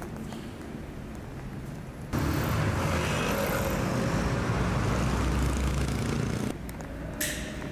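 City road traffic noise, a steady hum of cars with no single vehicle standing out. It jumps abruptly louder about two seconds in and drops back just as suddenly near the end, with a short sharp hiss shortly before the close.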